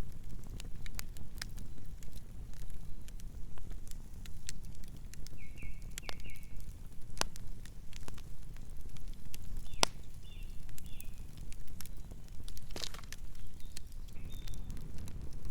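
Campfire burning: sharp, irregular crackles and pops of burning wood over a steady low rumble. A few short high chirps sound about six and ten seconds in.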